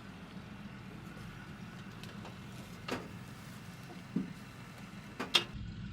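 A vehicle engine running with a steady low rumble, broken by a few sharp clicks or knocks, the loudest about five seconds in.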